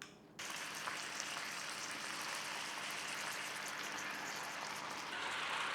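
Food sizzling in a hot pan: a steady crackling hiss that starts about half a second in and grows a little louder near the end.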